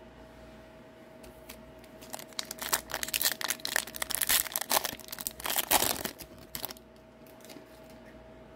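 A hockey card pack's plastic wrapper being torn open and crinkled, a run of sharp crackling rustle lasting about four and a half seconds that starts about two seconds in.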